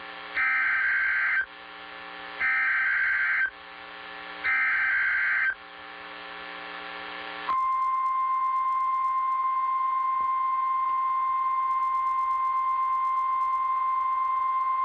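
NOAA Weather Radio alert opening: three buzzing one-second bursts of SAME digital header data, about a second apart, with faint radio hiss and hum between them. About seven seconds in, the steady 1050 Hz warning alarm tone starts and holds, the sign that a warning-level alert follows.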